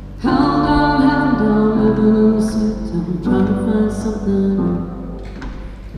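Live band music: a slow intro of held chords in phrases that start about every three seconds, each swelling and then fading.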